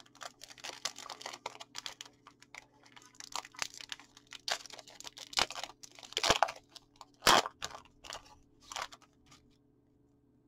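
Foil wrapper of a trading-card booster pack crinkling and tearing as it is ripped open by hand: a run of irregular crackles, with a few sharper, louder ones between about five and seven and a half seconds in.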